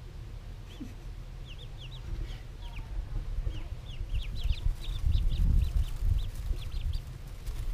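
A brood of ducklings peeping: many short, high chirps that come thicker about halfway through, over a low rumble.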